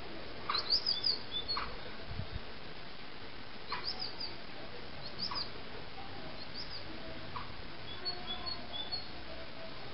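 Birds calling: short, high chirps and brief sharper calls scattered every second or so, over a steady background hiss.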